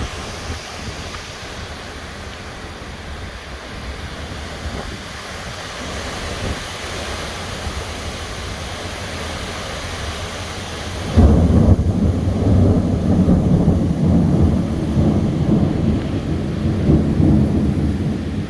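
Steady hiss of rain and wind, then about eleven seconds in thunder breaks suddenly and loudly and rumbles on for several seconds.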